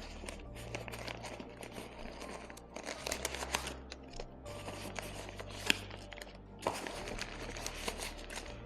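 Crinkling and rustling of plastic packaging being handled and pulled from a bag, with scattered small clicks and taps.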